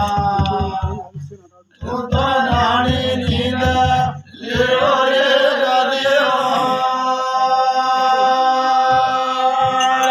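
Group of men chanting a devotional song together in long held notes, with drum beats under the first few seconds. The singing breaks off briefly twice, then carries on with few or no beats.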